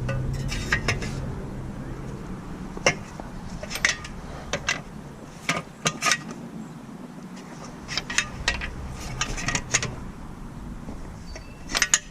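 Scattered metallic clicks and clinks, some in short clusters, from a socket ratchet and lug nuts being worked to loosen a car's wheel nuts.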